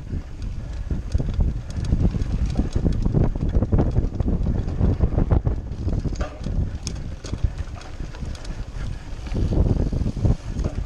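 Wind noise buffeting the microphone of a mountain bike's onboard camera as it rides over grass and dirt, with the bike rattling and clicking over bumps, the sharpest clicks a little past halfway.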